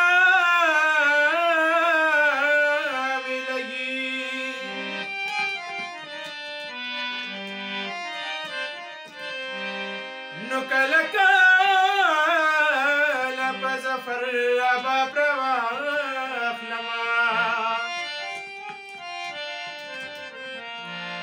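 Hand-pumped harmonium playing a melody of held reed notes, with tabla accompaniment. A man sings long, wavering held lines over it for the first few seconds and again from about ten to seventeen seconds in, and the harmonium carries on alone in between and near the end.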